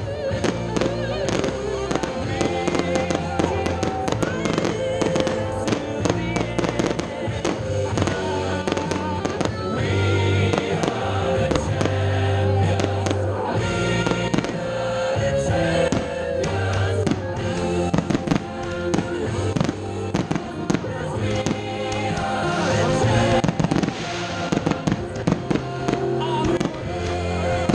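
Aerial fireworks shells bursting over and over in quick, irregular succession, with music playing continuously underneath as part of a pyromusical show.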